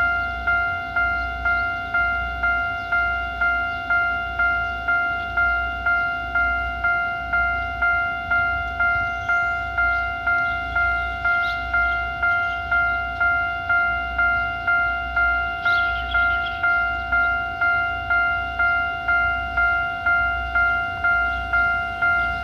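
Railway level-crossing warning bell sounding its special alarm tone: a single bell-like chime struck over and over, about three strikes every two seconds, each one ringing briefly and dying away.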